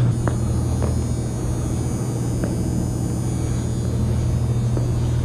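Steady low hum inside an empty shopping mall, with three faint ticks in the first few seconds.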